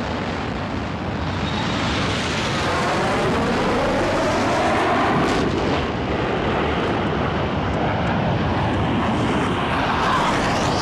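Military jet fighter taking off on afterburner: a loud, continuous jet roar with a whine that sweeps in pitch as the jet passes, cut off suddenly at the end.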